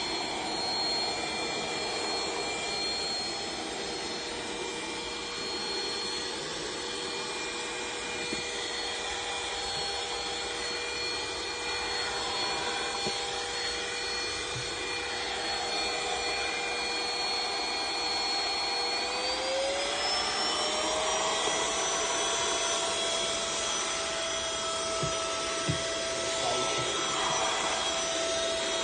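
SCIJOY 8000Pa 100W cordless handheld vacuum cleaner running steadily, with a motor whine over the rush of air. About twenty seconds in, the whine rises in pitch and holds at the higher note.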